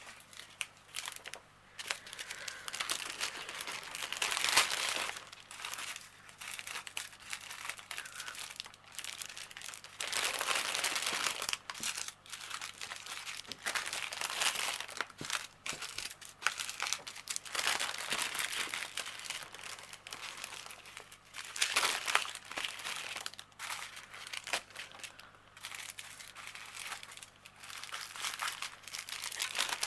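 Small plastic bags of diamond painting drills crinkling and rustling in irregular bursts as they are handled and sorted through.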